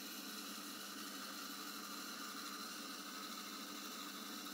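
Bandsaw running and cutting through a hardwood hammer-handle blank along its side profile, heard faintly as a steady hiss over a low motor hum.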